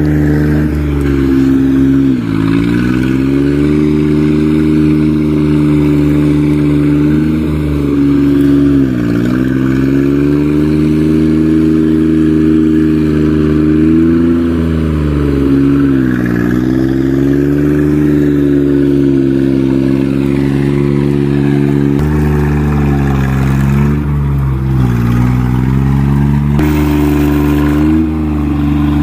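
Diesel engine of tracked earthmoving machinery running hard and steadily. Its pitch sags briefly and recovers about four times as the engine takes load.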